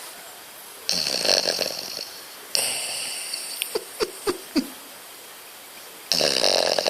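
French bulldog snoring in its sleep: two long buzzing snores about five seconds apart, the second near the end. Between them come a softer hissing breath and several short clicks.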